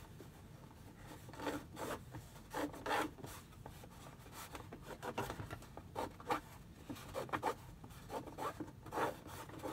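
Fabric being handled and creased flat, with a fingernail pressing along the fold: a run of short, irregular rubbing and scraping sounds.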